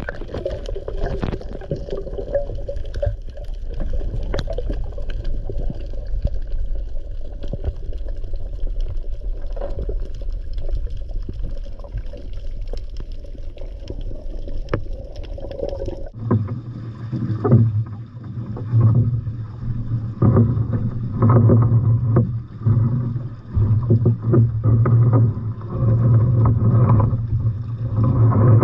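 Boat at sea: wind and water noise rumble for about half the time, then the sound changes suddenly to a steady low hum with irregular knocks.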